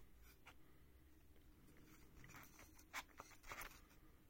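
Near silence broken by a few faint, short rustles and taps, the clearest about three seconds in: a bare computer motherboard being handled and shifted by hand.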